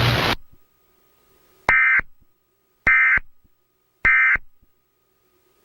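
Emergency Alert System end-of-message data tones: three short, identical warbling digital bursts about a second apart, the SAME "NNNN" code that closes an EAS activation. A hiss of static cuts off just before them.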